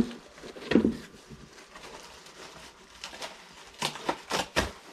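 Vacuum attachments and the cardboard box being handled on a table: a sharp clack at the start and another just under a second in, light rustling, then a quick run of clicks and knocks near the end.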